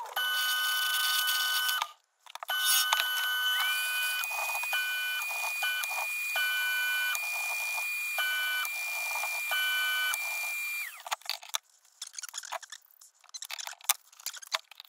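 Electronic beeping: two high tones pulse on and off together about once a second, over a higher held tone that slides up a few seconds in and stops near the end.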